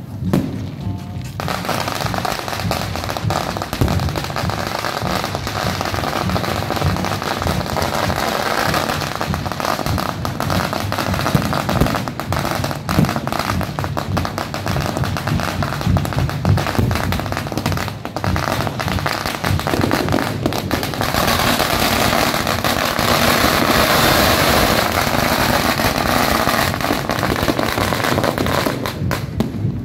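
Aerial fireworks shells launching and bursting one after another in a rapid, unbroken crackle of bangs. The crackling grows louder and denser about two-thirds of the way through.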